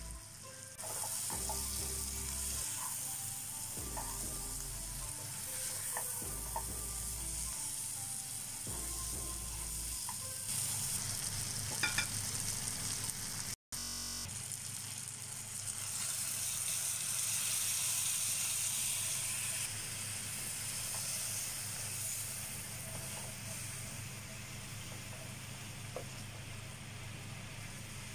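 Prawns frying in a thick spiced onion masala in a frying pan, sizzling steadily, with a brief break about halfway through.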